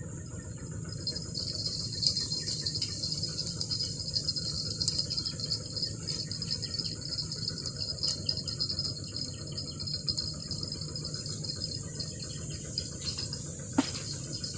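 Insects shrilling in a steady outdoor chorus, with a second, lower pulsing chirr joining about a second in. A single sharp click near the end.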